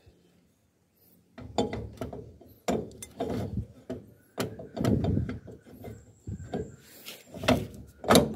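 Suzuki Multicab rear brake drum being pushed over the brake shoes and worked back and forth on the hub by hand. Starting about a second and a half in, it makes uneven strokes of metal-on-metal scraping and clunking, with a ratchet-like rattle.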